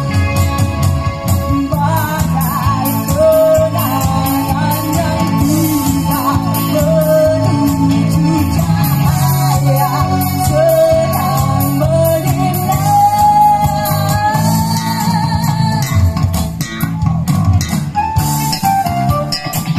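Live band playing through a PA: a woman singing a melody over electric guitar, keyboard and bass guitar.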